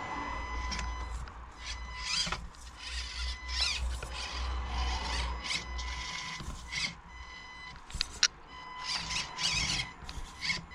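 SCX24 micro crawler's small electric motor and servo whining and whirring in short spurts as it crawls over obstacles, over a steady high-pitched whine, with a sharp click near the end.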